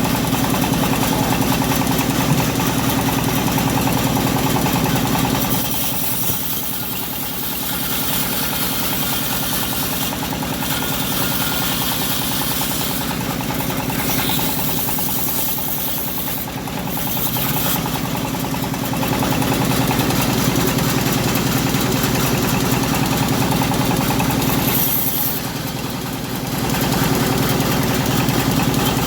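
Engine-driven homemade bandsaw mill running steadily. Its sound dips and shifts several times, most clearly about six seconds in and again near the end.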